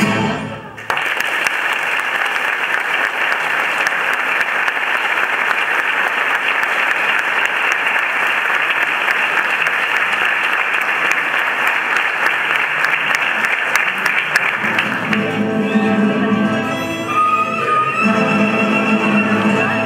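Audience applauding for about fourteen seconds after a song ends; then a string band of violins and guitars starts playing again.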